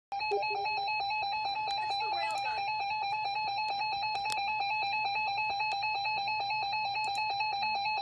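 NOAA Weather Radio warning alert tone, a single loud steady tone held unbroken, played from the station's online stream through a computer's speakers ahead of a tornado warning broadcast.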